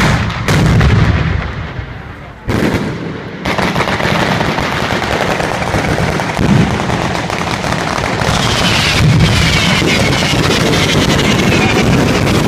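Fireworks batteria alla Bolognese, a ground-level barrage of firecrackers and bombs going off. A few separate loud bangs come in the first three seconds, then from about three and a half seconds in they merge into a continuous rapid-fire run of detonations, like machine-gun fire.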